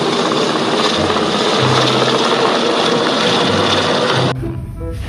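Large military search-and-rescue helicopter lifting off, its rotor and turbine noise loud and steady. The noise cuts off suddenly about four seconds in and gives way to light music with short plucked notes.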